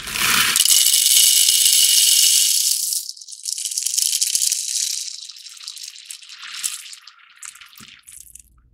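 Whole roasted coffee beans poured from a bag into the clear plastic bean hopper of a Breville espresso machine's grinder, rattling and pattering as they land. The pour starts suddenly and is loudest for the first three seconds, then thins to a patchier trickle that tapers off near the end.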